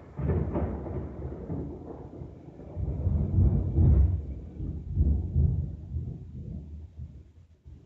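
Rolling thunder rumbling in waves. It is loudest about three to four seconds in and dies away near the end.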